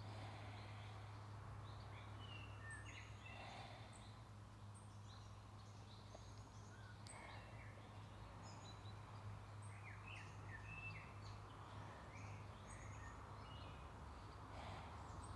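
Faint background birdsong: scattered short chirps and trills over a steady low hum.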